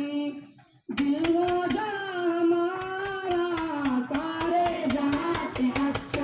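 A group of voices singing a song together in unison, with a steady beat of sharp percussive clicks under the melody. The singing breaks off briefly and starts again about a second in.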